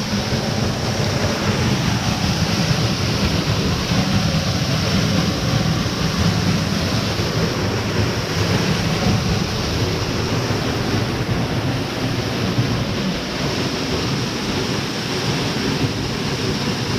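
Waterfall rushing steadily into its pool: a loud, even roar of falling water.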